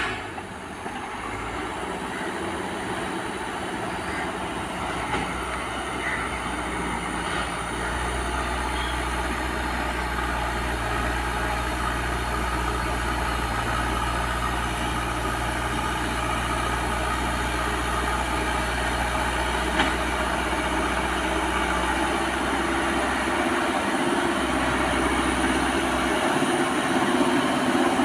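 CAT backhoe loader's diesel engine running steadily, getting gradually louder.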